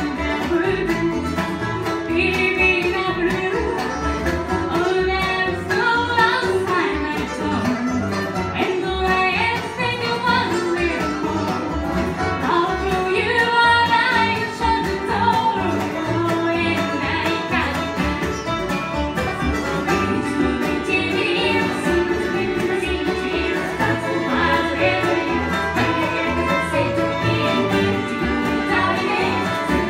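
Acoustic bluegrass band playing a song live, with string instruments such as banjo, guitar and fiddle, and singing.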